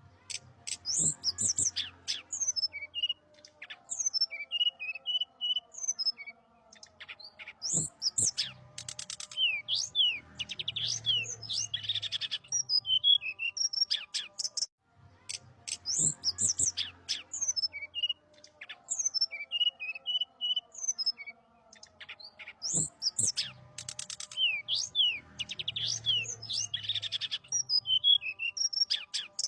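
A songbird in full song: a loud, varied stream of high whistled notes, quick up-and-down sweeps and rapid buzzy trills, delivered in bursts with short pauses. The same passage of song plays twice over.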